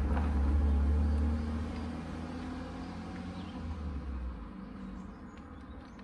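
Car engine running as a hatchback pulls away and drives off into the distance, its low rumble fading out about four seconds in.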